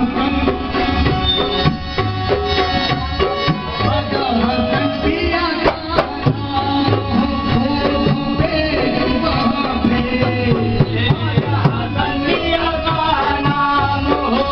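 Sufi devotional music: hand-drum percussion keeping a steady rhythm under a bending melody line.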